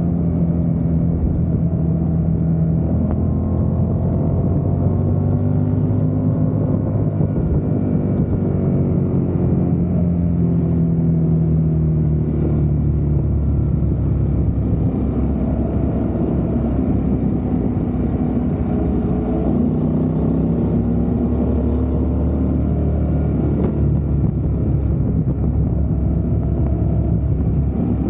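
Motorcycle engine running under way, its pitch slowly rising and falling as the revs change, over a steady low rumble.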